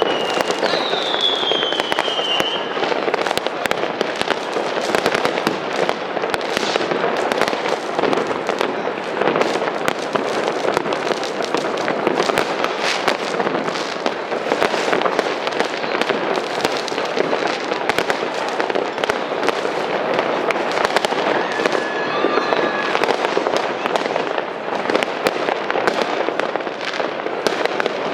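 Many New Year's Eve fireworks and firecrackers going off at once: a dense, continuous crackling and banging, with two falling whistles in the first couple of seconds.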